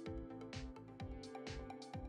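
Background music with a steady drum beat of about two beats a second over held instrument notes.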